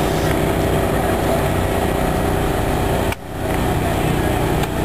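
A fire engine's motor running steadily, with a brief dip in level a little after three seconds in.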